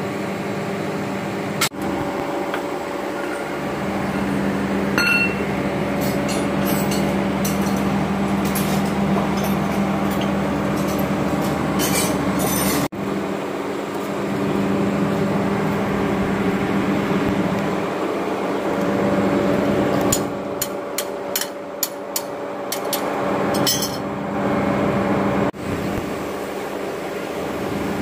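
Hand tools clinking and tapping on metal parts of a backhoe loader's axle in scattered clusters of sharp clicks, over a steady mechanical hum.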